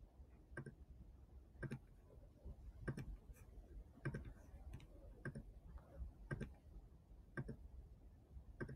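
Faint computer mouse clicks, about one a second, each a short press-and-release tick, over a low background hum.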